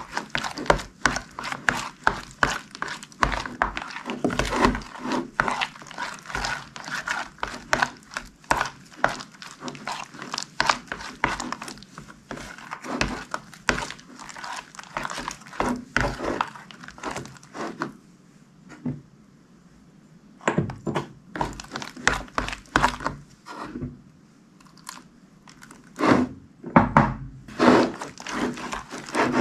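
Slime being squished and kneaded by hand: a fast, irregular run of sticky clicks and pops. It eases off twice for a second or two in the later part.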